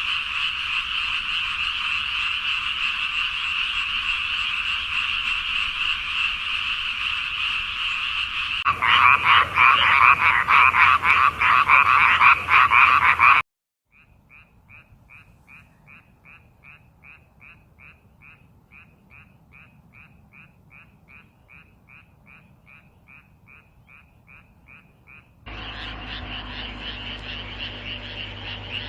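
Several frog recordings in sequence: a dense, steady frog chorus, then louder rapid pulsed croaking, a brief break, then a single quieter run of short calls repeated about three times a second, and finally another frog chorus over a low hum.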